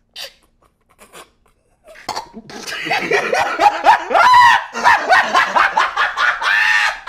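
A man laughing hard and high-pitched, breaking into rapid pulses; it starts about two seconds in after a few short faint sounds and goes on loudly to the end.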